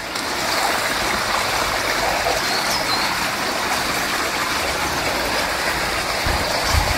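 A stream running nearby, a steady rush of flowing water.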